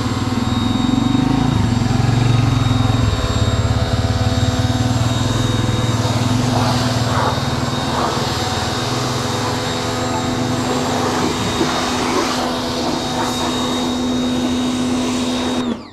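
Hyundai 1400-watt electric pressure washer running under load, its carbon-brush motor and pump giving a steady hum over the hiss of the high-pressure spray hitting a car's bodywork. The machine cuts off abruptly near the end, the auto-stop that shuts it down when the gun trigger is released.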